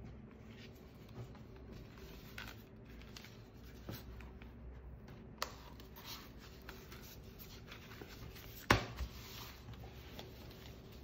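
Hands unwrapping a fabric cover from a clear plastic sleeve: soft crinkling and rubbing of plastic and cloth, with scattered small taps and one sharper knock near the end.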